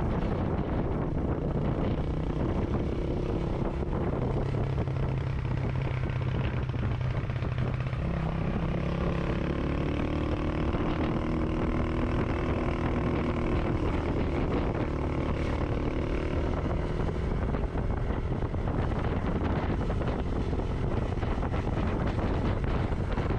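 Motorcycle engine running while riding, with wind rushing over the microphone; the engine's pitch shifts up and down a little partway through.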